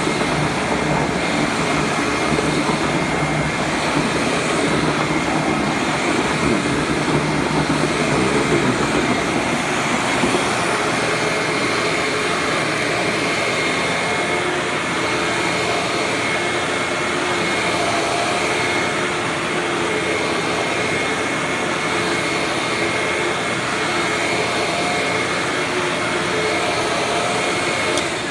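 Hoover WindTunnel bagless twin-chamber upright vacuum cleaner running steadily: a rush of air with a steady high motor whine on top. The sound starts to fall away at the very end.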